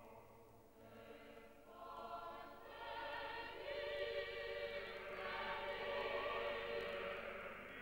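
Choral music: a choir singing long held chords that swell louder about three seconds in.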